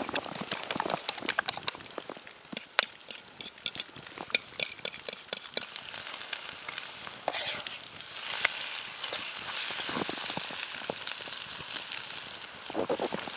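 Bacon and eggs frying in a pan over a campfire: steady sizzling with many sharp crackling pops, the hiss growing denser for a few seconds past the middle.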